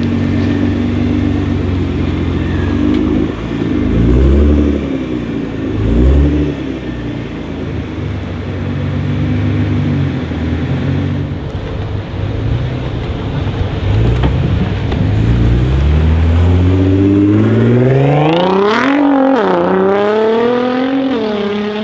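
Nissan GT-R R35's twin-turbo V6 through a Titan aftermarket exhaust. It idles with two short revs, then accelerates hard, the pitch climbing and dropping sharply at two upshifts near the end.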